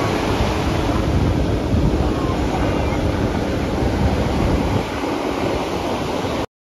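Steady rushing of wind on the microphone over surf, cutting off abruptly near the end.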